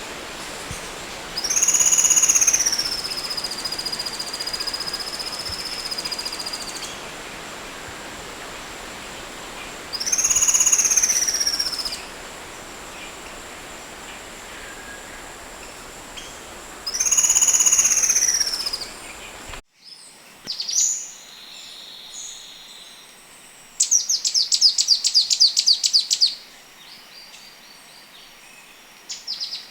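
Oriental magpie-robin song: three long, high whistled phrases a few seconds apart over a hissy background. Near two-thirds of the way through, the recording changes to a fast rattling trill and short sharp chirps.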